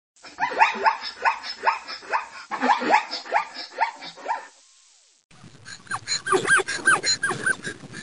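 Zebra barking calls: a fast run of short yelps, each falling in pitch, two or three a second. A brief pause about four and a half seconds in, then a second run of higher calls that rise and fall.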